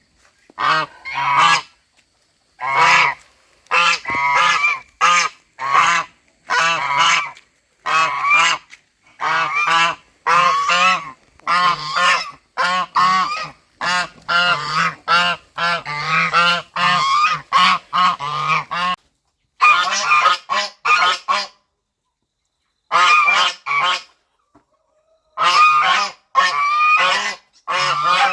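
Goose honking over and over in loud, harsh honks, often one or two a second, with several abrupt dead-silent breaks about two-thirds of the way through.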